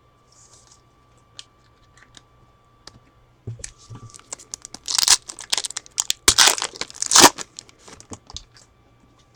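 A trading-card pack wrapper being torn open and crumpled, in several loud rips about halfway through, after a few seconds of faint handling clicks.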